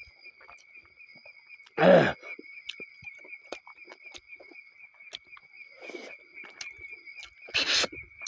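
Crickets trilling steadily in the night, with small wet mouth and eating clicks close to the microphone. A loud, breathy intake of air, the loudest sound, comes about two seconds in and again near the end, from a man eating a very spicy curry.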